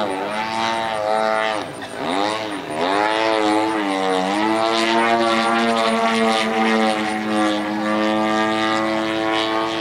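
Desert Aircraft DA-120 twin-cylinder two-stroke gas engine and propeller of a giant-scale radio-control Extra 300 aerobatic plane in flight. Its note swoops up and down several times in the first half, then holds a steady pitch for the rest.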